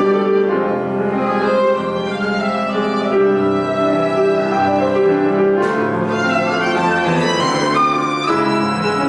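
Violin playing a slow melody in long held notes, over sustained lower notes.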